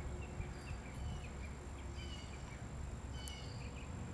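Outdoor ambience: a low, uneven wind rumble on the microphone, with scattered faint short bird chirps and a thin steady high tone.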